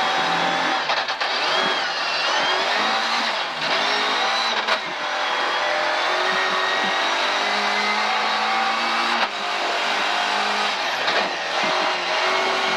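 Volvo 740 rally car's engine revving hard at full throttle, heard from inside the stripped cabin, with the note dropping briefly twice between pulls.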